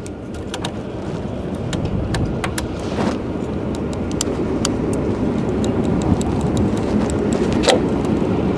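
Small Kawasaki Ninja sport bike's engine being cranked by its electric starter and not yet firing, with scattered clicks; the cranking grows steadily louder.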